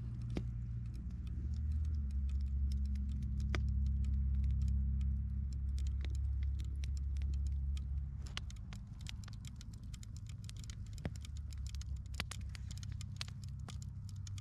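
Wood campfire crackling, with sharp pops scattered throughout over a low rumble that eases about eight seconds in.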